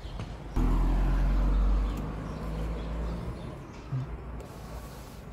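Porsche Macan's power tailgate motor humming steadily as the tailgate moves, worked from the boot button on the driver's door that has just been enabled. The hum starts abruptly about half a second in, is loudest for the next second and a half, and dies away around three seconds in; a short knock follows near four seconds.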